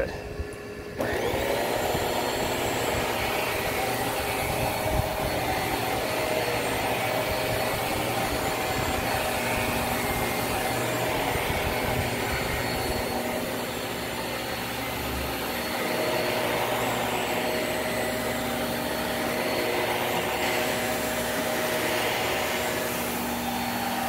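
Hart Pro bagless upright vacuum switched on about a second in, its motor spinning up with a rising whine. It then runs steadily over carpet, with slow swells as it is pushed back and forth.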